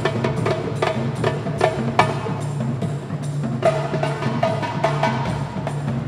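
Percussion ensemble playing a fast rhythm: sharp, closely spaced strikes over a running low bass line, with a ringing pitched note that keeps recurring.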